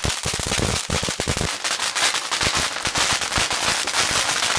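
Fireworks going off as a rapid string of loud firecracker pops, many a second, that cuts off suddenly at the very end.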